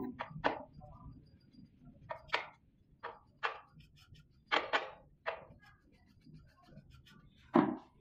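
Irregular short knocks and clicks from hands handling a key cutting machine, about ten in all, some in quick pairs, with the loudest one near the end.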